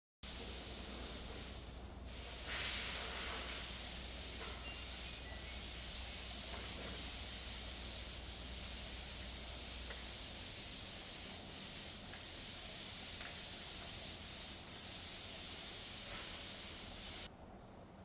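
A steady hissing noise that cuts off suddenly near the end, with a low hum beneath it for the first half.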